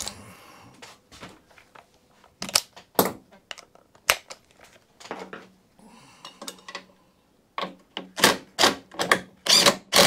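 A few separate metal clicks and knocks of tools being handled, then a DeWalt cordless impact driver rattling in a string of short bursts, tightening the locking nut on the mower's drive pulley.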